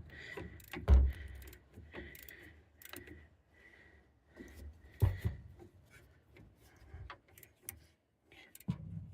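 Metal clicks, rattles and knocks of a socket wrench being worked on a rear brake caliper bolt, with a loud knock about a second in and another about five seconds in.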